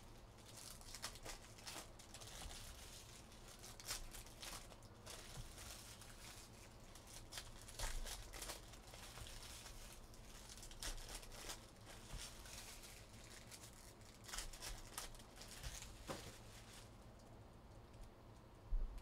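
Foil wrappers of Panini Prizm basketball card packs crinkling and tearing as the packs are opened, with trading cards being handled and stacked. Faint, irregular rustles and clicks.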